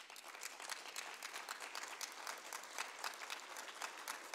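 Audience applauding: a steady patter of many hand claps.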